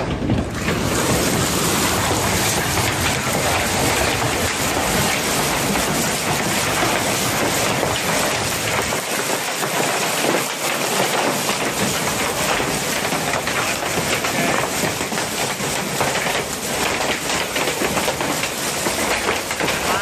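Heavy rain and large hailstones pelting the ground, a dense, steady downpour noise.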